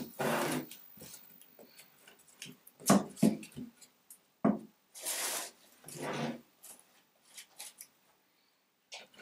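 Hands moving wooden frame strips and cardboard about on a plywood workbench: brief rubbing and scraping sounds, with two sharp wooden knocks about three seconds in.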